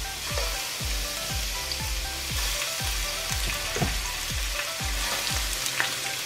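Raw shrimp sizzling in hot vegetable oil in a non-stick frying pan as more are laid in with tongs. Background music with a steady bass beat runs underneath and stops near the end.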